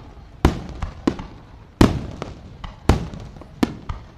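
Fireworks bursting: four loud booms about a second apart, each trailing off in a rumbling echo, with smaller cracks between them.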